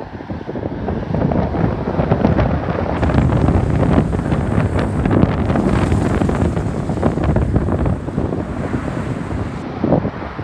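Strong gusty wind buffeting the microphone in a rough, loud rush that builds over the first few seconds and eases near the end.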